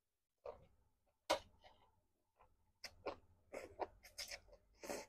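A person slurping and chewing instant noodles in spicy broth close to the microphone: an irregular string of short mouth noises, with the loudest slurp about a second in and a quicker run of them near the end.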